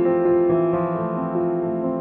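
Background piano music: sustained, overlapping keyboard notes changing every half second or so.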